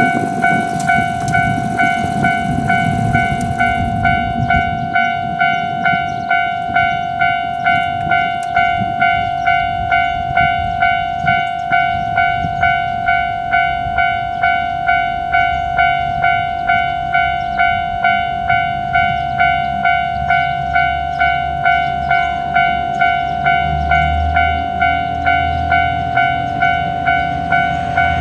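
Japanese level crossing alarm ringing its steady two-beat-a-second-style "kan kan" ding, a bit under two dings a second. A train runs past for the first few seconds, its noise ending about four seconds in, and a low rumble builds again near the end.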